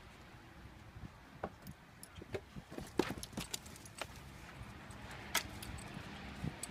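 A dog's metal collar tag and leash clip jingling in a string of light, irregular clicks as the dog moves, with louder clinks about three and five seconds in.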